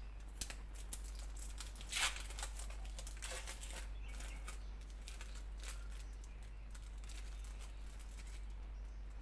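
Clear plastic wrapper of a processed cheese slice crinkling and crackling as it is peeled off the slice, loudest about two seconds in and dying away after about six seconds, over a steady low hum.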